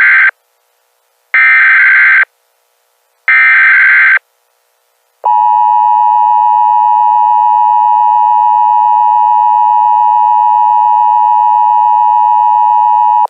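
Emergency Alert System tones: the end of one SAME header data burst and two more short data bursts about a second each, then the steady two-tone EAS attention signal held for about eight seconds before it cuts off suddenly.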